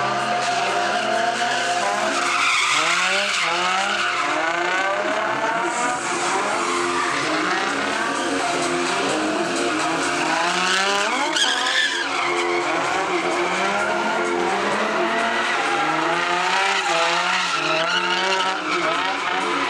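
Nissan 350Z's V6 revving up and down over and over while it drifts in circles, its spinning rear tyres screeching continuously. The highest rev comes about eleven seconds in.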